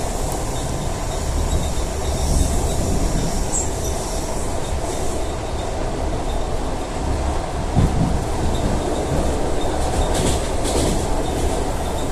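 ED4M electric multiple unit running along the track: a steady rumble of wheels on rail, with a faint high squeal above it.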